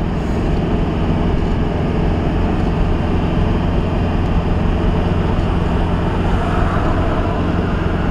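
Steady engine drone and road noise inside the cab of an old converted-bus camper driving at a constant road speed, with the low hum of the engine holding one pitch throughout.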